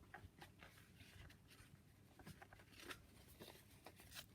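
Near silence: room tone with a few faint small clicks and rustles.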